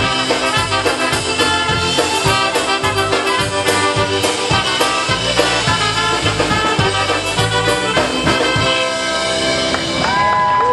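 Live polka band with fiddle, accordion, brass, drums and bass playing to a steady beat. The tune closes on a long held final chord about ten seconds in.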